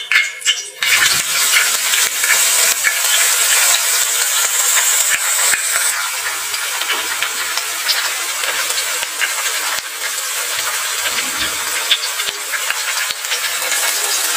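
Chopped shallots, garlic, red chillies and spring onions hitting hot oil in a wok about a second in and sizzling steadily as they sauté, with small clicks of a wooden spatula.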